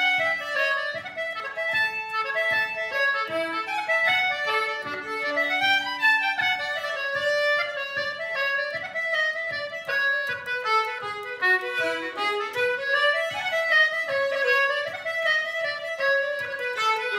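Fiddle and concertina playing an Irish traditional tune together, a quick, steady run of notes.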